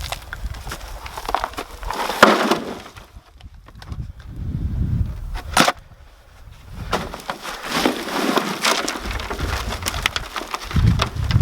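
Hands digging through dry compost in a potato container, with irregular crunching, rustling and knocks of potatoes and soil, including one sharp knock about halfway through.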